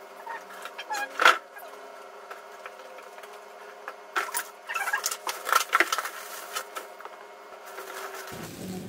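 Plastic bread bags and grocery packaging crinkling and rustling in the hands, with a few light knocks as items are set down. There is one burst about a second in and a busier cluster about halfway through.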